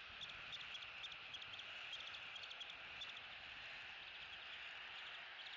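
Steady hiss of rain falling around the nest, with light drips ticking irregularly several times a second during the first three seconds.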